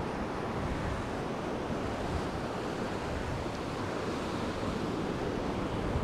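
Surf of small wind-driven waves breaking steadily on a sandy shore, with wind noise on the microphone.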